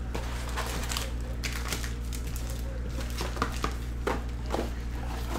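Foil trading-card packs and a cardboard hobby box being handled: scattered light rustles and taps over a steady low hum.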